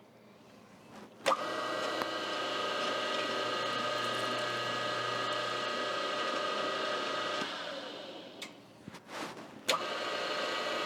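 A machine tool's electric motor is switched on with a click about a second in and runs steadily with a whine and low hum. It is switched off and winds down a little past halfway, then is switched on again with another click near the end.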